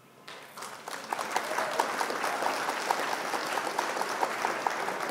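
Applause sound effect: a crowd clapping, starting about a third of a second in and swelling over the first second, marking a correct quiz answer.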